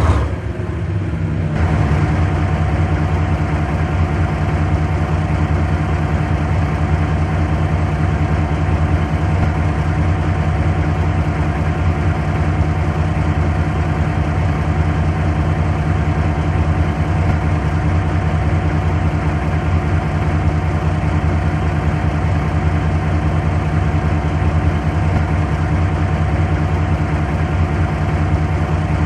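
A vehicle engine idling steadily with an even, unchanging hum.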